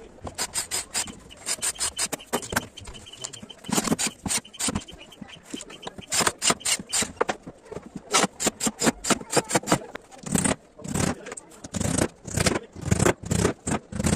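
Wood or MDF being worked by hand with a back-and-forth scraping stroke, about four or five strokes a second, in runs broken by short pauses.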